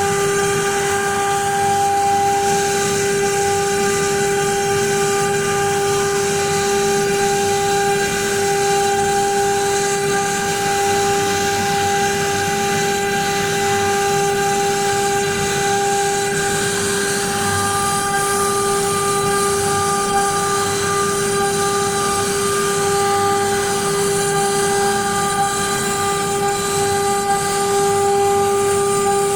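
Home-built CNC machine running with a steady, unbroken high whine over a hiss.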